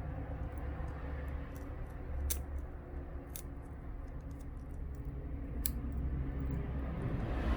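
A few sharp little clicks and taps of hand tools on small phone parts, over a steady low background rumble.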